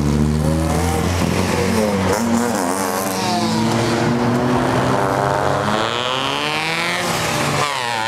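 Several race car engines running at once as cars pull away from the grid one after another, their overlapping engine notes rising and falling in pitch as they rev and accelerate.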